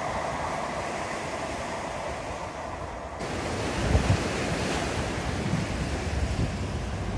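Sea surf washing on the beach, with wind buffeting the microphone in gusts.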